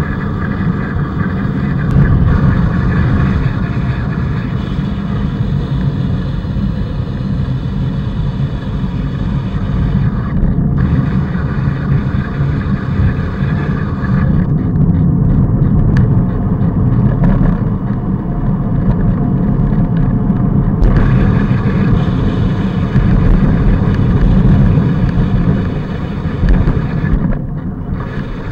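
Wind buffeting the microphone of a bicycle-mounted camera while riding at speed, with a steady low rumble of tyres on asphalt.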